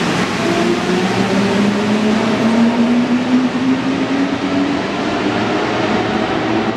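Rubber-tyred CAF-built Santiago Metro Line 1 train pulling away, its traction motors whining in a slowly rising pitch as it gathers speed, over a steady rolling rumble. The whine fades out about five seconds in.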